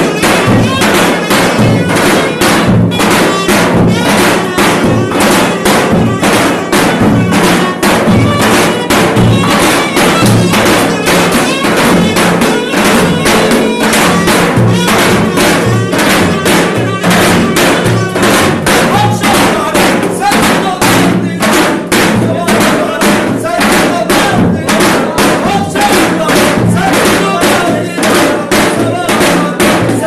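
Two davul bass drums beaten in a steady, fast rhythm, with a clarinet playing a melody over them: Turkish davul-and-clarinet folk dance music played live.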